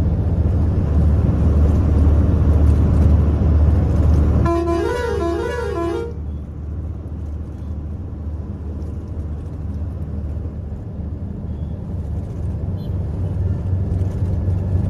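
Truck engine droning steadily, heard inside the cab while driving. About four and a half seconds in, a musical horn plays a quick run of notes alternating between two pitches for about a second and a half.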